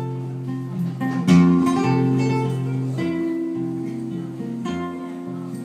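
Solo acoustic guitar playing a slow instrumental passage between verses of a folk ballad, picking sustained chords. A new chord is struck about a second in, and the chord changes again near the middle and near the end.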